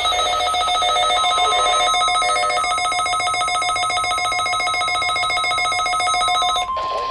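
NOAA Weather Radio receiver sounding its weekly-test alert: a loud, rapidly pulsing electronic alarm with several pitches, joined about a second in by the steady 1050 Hz warning tone. The tone carries on alone after the pulsing alarm stops near the end.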